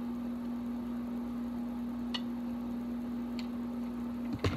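A steady low hum with two faint ticks, then a short knock near the end as a plastic bottle is handled close to the microphone.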